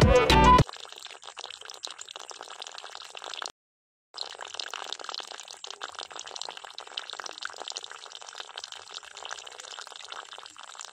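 A thin stream of water from a miniature hand-pump spout splashes steadily into a small water trough, a light continuous trickle and patter. It cuts out for about half a second about three and a half seconds in, then carries on.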